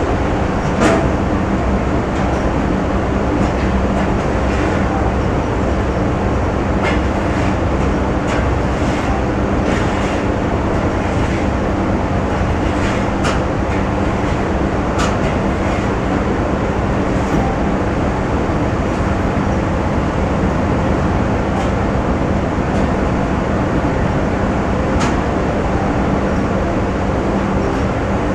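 Factory machinery running, a steady dense rumble with a constant low hum. A few sharp clicks stand out now and then.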